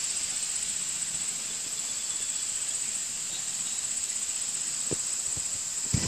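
Steady, high-pitched insect chorus of many insects singing at once in an even shimmering drone, with a single soft knock about five seconds in.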